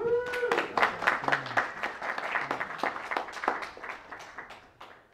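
A small audience applauding: many hands clapping, thinning out and fading near the end. One voice gives a short call just as the clapping starts.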